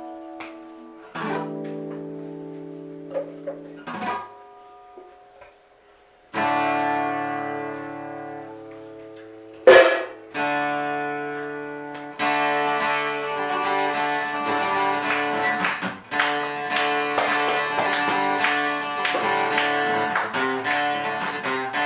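Acoustic guitar: a few strummed chords left to ring and fade, then steady rhythmic strumming through the second half. About halfway through there is a single sharp, loud knock.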